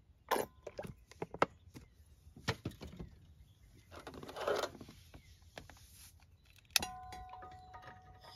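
Knocks and clinks of cooking gear and a glass oil bottle being handled, with one sharp metallic clink about seven seconds in that rings on briefly.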